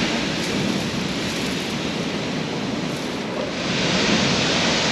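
Surf breaking and washing on a shingle beach in a big swell: a steady rushing hiss that swells louder about three and a half seconds in.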